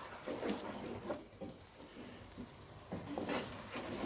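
A wooden spoon stirring meatballs and onions in a nonstick frying pan, with several light scrapes and knocks over a faint sizzle of the meat frying in its own released juices.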